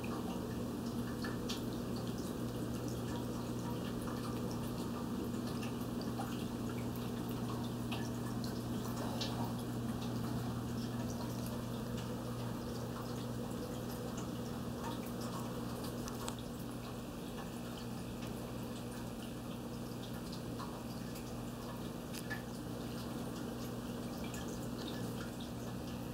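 Submerged internal aquarium filters running in a turtle tank: a steady low hum with water trickling and dripping at the surface.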